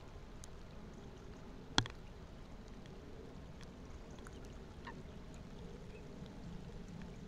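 Rain falling on shallow marsh water: a steady hiss with scattered faint drop ticks. About two seconds in, one sharp tap stands out.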